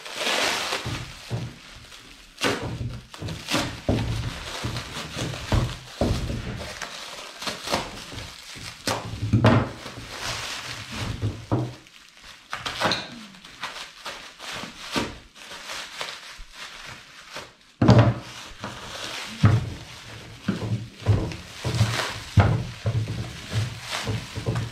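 Irregular thuds and knocks as the heavy parts and packaging of a new belt grinder are lifted out and set down, with some rustling of packing material between them.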